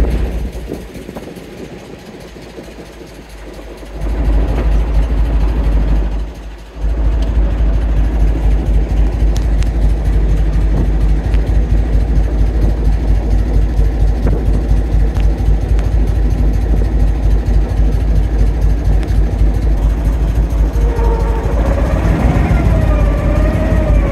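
The small engine of a loch passenger boat running under way, a steady low throb. It quietens for a few seconds near the start and dips briefly again a little later, then runs on steadily.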